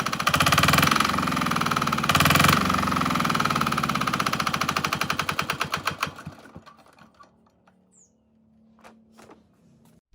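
R185 single-cylinder diesel engine running with a steady, rapid knock, then shut off about six seconds in, its beat slowing as it coasts to a stop. A few faint clicks follow.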